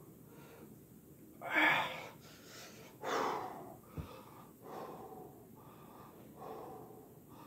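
A man breathing hard from the exertion of a long push-up set: two loud gasping breaths about one and a half and three seconds in, then quieter panting. A short thump about four seconds in as his hands land on the carpeted floor.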